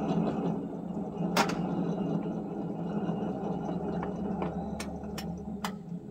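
GRS Model 2A dwarf semaphore signal mechanism running with a steady electric-motor hum as it operates the blade, with a sharp click about a second and a half in and a series of clicks near the end.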